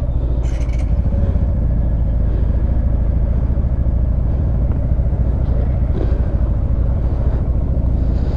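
Yamaha street motorcycle's engine idling steadily, freshly started, with an even low throb. A brief faint click about half a second in.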